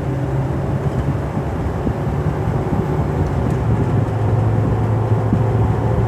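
Cabin noise of a GMC Duramax turbo-diesel pickup at freeway speed: a steady low drone of engine and road that settles a little lower about halfway through. No whistle or hum from the roof-mounted LED light bar, whose fins have been covered with door edge molding to stop it.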